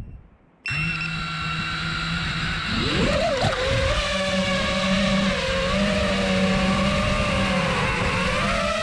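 FPV quadcopter's brushless motors spin up suddenly under a second in with a steady whine. About three seconds in the pitch rises as the throttle comes up for takeoff, then the whine wavers up and down with the throttle.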